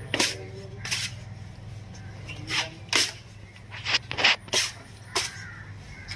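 A putty blade scraping wall care putty across a wall: about eight short, unevenly spaced scraping strokes over a steady low hum.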